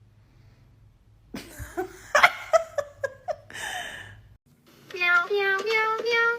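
Laughing and giggling voices, followed after a brief pause by a few held musical notes that step upward in pitch.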